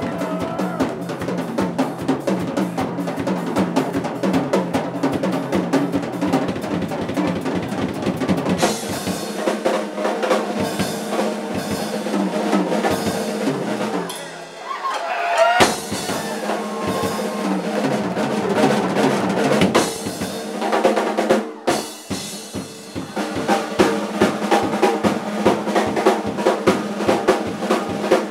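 Yamaha drum kit played live: dense, fast strokes on the drums and cymbals, with a brief quieter moment about halfway through.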